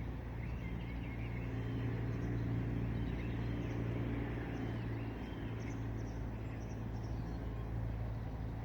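Small birds chirping repeatedly over a steady low rumble of traffic.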